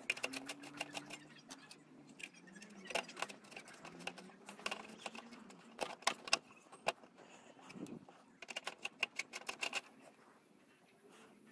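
Light metallic clicks and scrapes of a screwdriver working the screw terminals of a subwoofer amplifier board as a power wire is fastened in, in several quick clusters with short pauses between.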